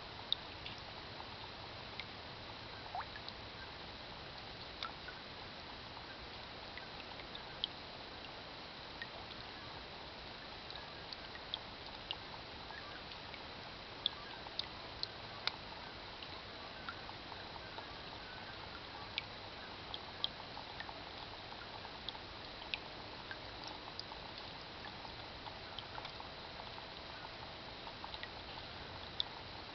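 Heavy rain with single drops plinking irregularly into the water of a rain barrel, over a steady hiss of rain.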